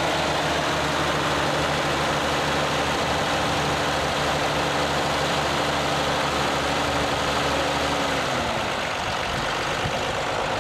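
1953 Oliver 88 diesel tractor's six-cylinder engine running at a steady speed, then its note drops and fades about eight seconds in as the revs come down.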